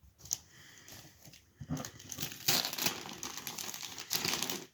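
Packaging being crinkled and torn open by hand: a click near the start, then from about two seconds in a dense run of crackling rustles.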